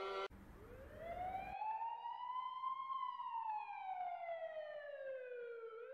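An emergency-vehicle siren wailing, with one slow rise in pitch over about three seconds, a slower fall, and a new rise starting near the end. A low rumble sits under it for the first second.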